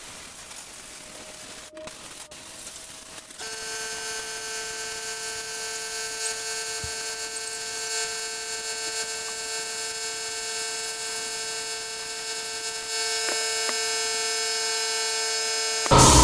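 Compressed-air blow gun blowing out an LS cylinder head: a steady hiss with a high whistle over it, starting about three seconds in and growing a little louder near the end.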